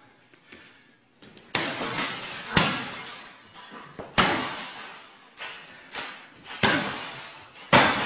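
Kicks and strikes landing on a hanging heavy bag: about seven sharp smacks, starting about a second and a half in. Each one trails off over a second or so.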